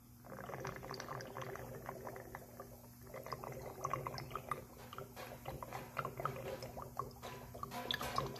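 A thin stream of water trickling from the partly opened brass drain valve at the bottom of an oil-water separator and splashing irregularly onto a concrete floor as the settled water is drained off. A steady low hum sits underneath.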